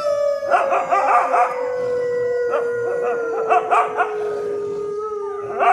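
Several dogs howling together in chorus. One long howl slides slowly down in pitch all the way through, other dogs' wavering howls and yips are layered over it, and a fresh howl joins near the end.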